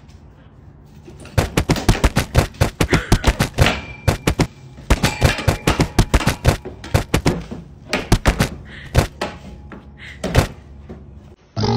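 Dog scuffling at the base of a wooden fence, with rapid, irregular knocks and clatters, often several a second, starting about a second in and dying away near the end.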